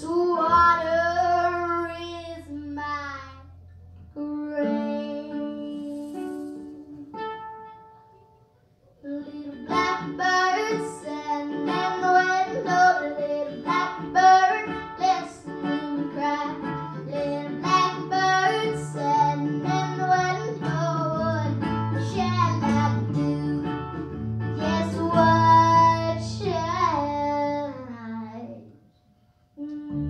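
Live acoustic string band playing: a woman sings over guitar, mandolin and upright bass. The music thins and nearly stops about eight seconds in, then the full band comes back in about a second later and plays until a short break near the end.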